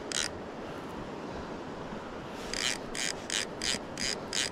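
Fly reel's click-and-pawl ratchet sounding in short rasping bursts while a hooked Atlantic salmon is played on the line. There is one burst at the start, then a quick run of about six bursts in the second half.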